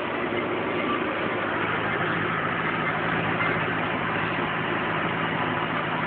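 Engine of a Rastrojero pickup running steadily as it drives along, with a constant drone and road noise.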